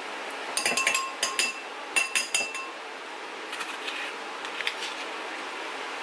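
A metal spoon clinking and tapping against a glass and a plastic tub while frozen berries are scooped out. There is a quick run of ringing clinks about half a second in, another cluster about two seconds in, then fainter taps later.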